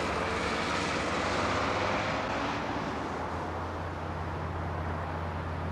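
Traffic on a busy dual carriageway: vehicles passing, the loudest going by about one and a half to two seconds in, then a low steady hum.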